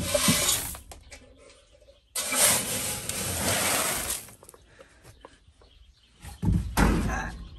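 Dry feed grain, including corn, scooped with a metal scoop and poured into a metal bucket: three rushes of rattling kernels, the longest lasting about two seconds.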